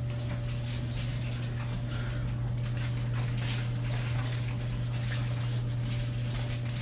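A steady low hum, with light crinkling of aluminium foil and scraping as butter is scooped from a tub and spread on foil-wrapped fish fillets.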